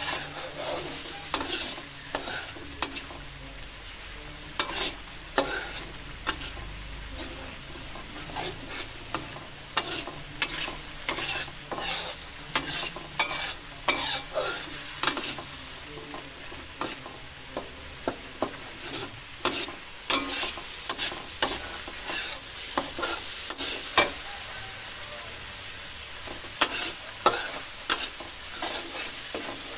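Ground chili and tomato spice paste sizzling as it fries in a metal wok, stirred with a metal spatula whose edge scrapes and clicks against the pan at irregular intervals.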